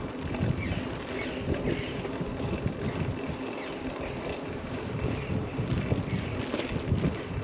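Wind buffeting the microphone during a mountain-bike ride, with birds chirping briefly now and then.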